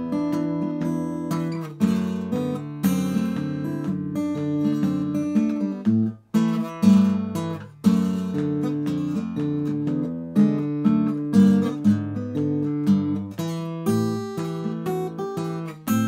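Simon & Patrick Showcase mahogany acoustic guitar played fingerstyle: an acoustic blues piece of plucked notes, with low bass notes under the higher melody. The playing breaks off briefly about six seconds in, then carries on.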